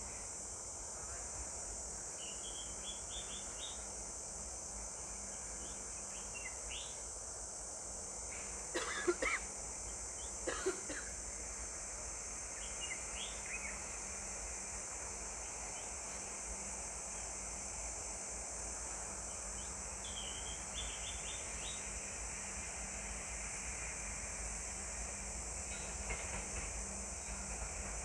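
Outdoor ambience: birds chirping in short rising trills over a steady high-pitched hiss, with two short, louder sounds about nine and ten and a half seconds in.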